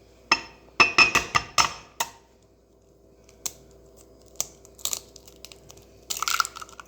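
An egg being cracked one-handed: a quick run of sharp taps of shell against a hard edge in the first two seconds, then a few single clicks and a short rustle near the end.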